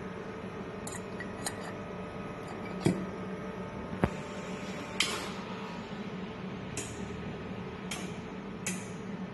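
Steady machine hum with about eight sharp, irregular metallic clinks and clicks, the loudest near three, four and five seconds in.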